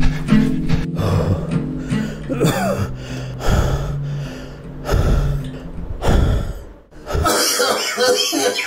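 Film score with sustained low notes and a few heavy hits. About seven seconds in, the music drops away and a bedridden, ailing elderly man coughs and gasps for breath.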